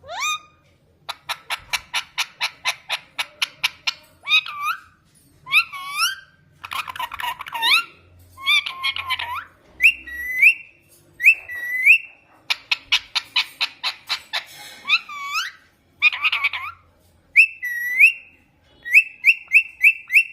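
A pet parrot whistling and calling: rising whistled notes, two long runs of rapid pulses of about seven a second, and a quick series of short chirps near the end.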